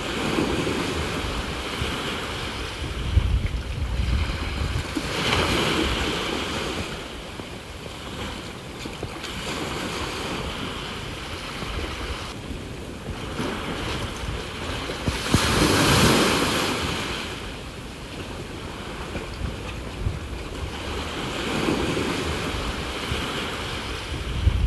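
Sea waves washing onto the shore, swelling and ebbing several times, loudest about two-thirds of the way through, with wind rumbling on the microphone.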